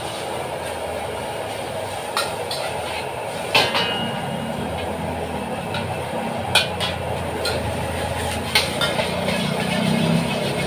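Steady roar of a high-pressure gas wok burner running at a big flame, with a metal spatula striking and scraping the steel wok several times.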